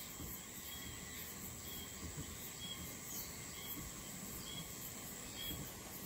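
Insects chirping outdoors: a steady high buzz with a short chirp repeating about once a second, over a low, uneven background rumble.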